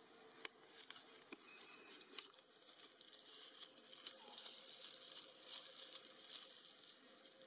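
Near silence: faint outdoor ambience with a soft high hiss and scattered small clicks and rustles.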